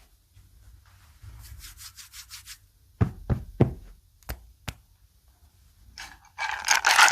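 A few separate knocks and sharp clicks, then from about six seconds in a loud, dense, rapid clatter of typing on a mechanical keyboard.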